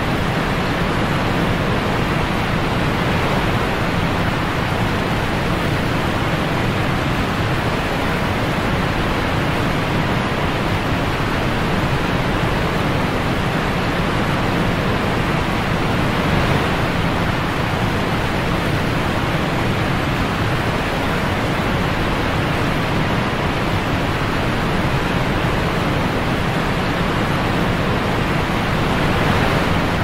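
Mountain stream cascading over boulders in a small waterfall: a loud, steady rush of white water.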